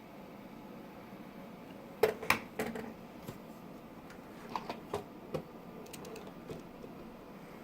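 Plastic Lego Technic parts clicking and knocking as the partly built model is handled: three sharper clicks about two seconds in, then a few lighter ticks over the next few seconds.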